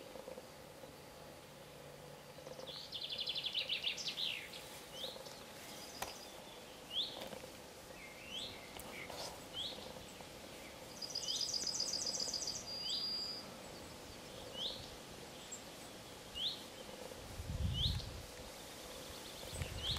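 Birds calling in open countryside: one bird repeats a short falling chirp about every second, and twice a fast trill comes in, the second about halfway through. A brief low rumble sounds near the end.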